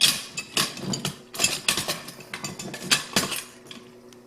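Metal chainsaw-mill parts clinking and knocking together as an adjustment post is fitted to the mill frame: a string of sharp clicks and clanks that thins out and grows quieter near the end.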